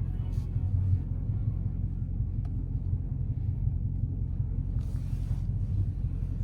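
Steady low rumble of a Dodge Challenger Scat Pack's 6.4-litre HEMI V8 and tyres, heard from inside the cabin while driving on a snow-covered road, with a brief hiss about five seconds in.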